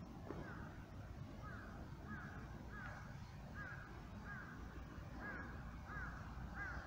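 A crow cawing: a steady series of about nine short caws, a little under a second apart, over a low background rumble.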